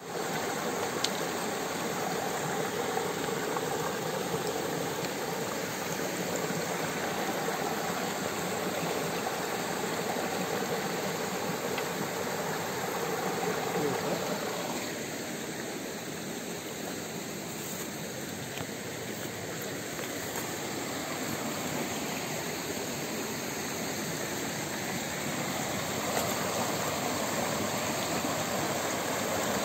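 Shallow rocky stream running and splashing over stones: a steady rush of water that thins about halfway through and fills out again a few seconds before the end.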